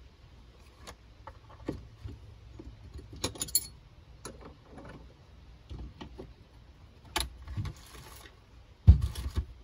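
Metal hand tools and small parts clinking and clattering: scattered light clicks and knocks, then a louder clatter near the end as sockets and wrenches are rummaged through.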